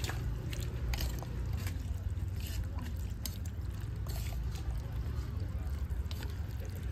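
Metal spoon and wooden chopsticks stirring a ceramic bowl of beef noodle soup: scattered light clinks and scrapes against the bowl, over a steady low rumble.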